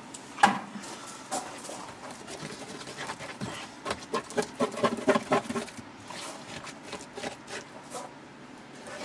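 Thick wet Seacast transom compound being packed down into a wooden form with a wooden stick: sticky squelching and the stick rubbing and scraping against the wood, with a sharp knock about half a second in and a quick run of short squelches around the middle.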